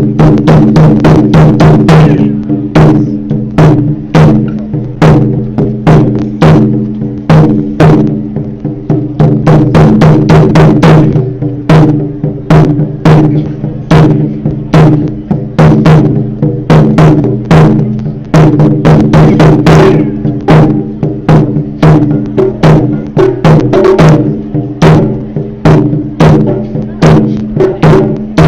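Taiko drums played by an ensemble: a dense, loud run of sharp drumstick strikes on large Japanese drums, with ringing drum tones under the hits.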